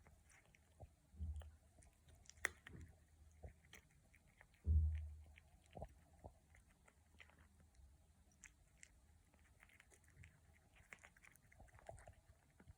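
A cat chewing green peas: faint, irregular small crunches and clicks. A dull thump about five seconds in is the loudest sound, with a smaller one just over a second in.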